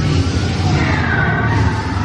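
Dark-ride soundtrack played loud: music over a deep, steady rumble from the ride's effects and moving vehicle, with a high sliding tone about a second in.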